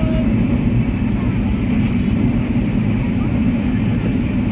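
Train running along the track: a steady, continuous low rumble.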